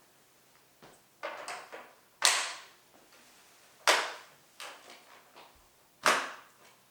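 Hard plastic toy playset pieces clacking as they are handled and fitted together: three sharp clicks about two seconds apart, with lighter knocks and rattles between.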